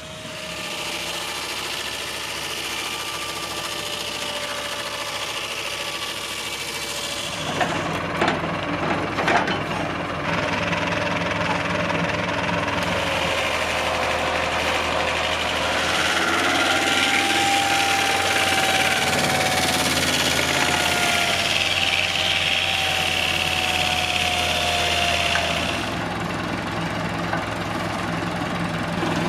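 Circular sawmill running with its tractor engine chugging steadily as the saw blade cuts through a log. A few sharp clunks come about eight to ten seconds in. In the louder second half a whine slowly sinks in pitch as the blade works through the wood.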